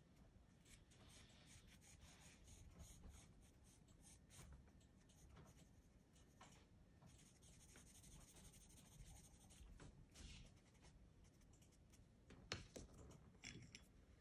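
Faint scratching of a pastel pencil on textured pastel paper: a run of short hatching strokes, with one longer stroke of about two seconds midway. A sharp tap comes near the end.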